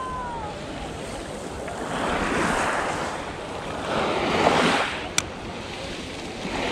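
Small waves washing up on a pebble beach, swelling twice, about two seconds and about four seconds in, with a single sharp click a little after five seconds.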